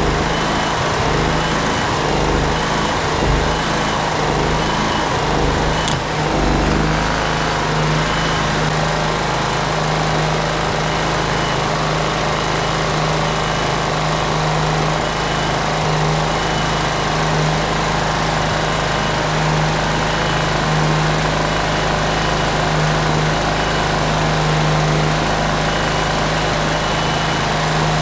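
Powermate Vantage 7000 portable generator's small gasoline engine running steadily, just after its diodes and capacitor were replaced.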